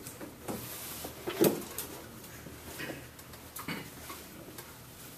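Classroom rustle: scattered small clicks and knocks of people shifting and handling things at their desks, with one louder knock about a second and a half in.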